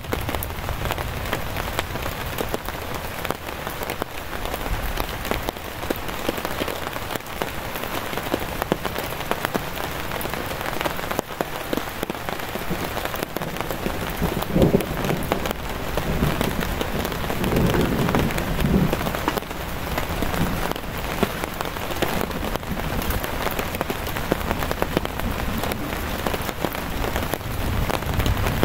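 Steady heavy rain falling on a camping tarp overhead, with many separate drops ticking on it. A few louder low swells come a little past halfway.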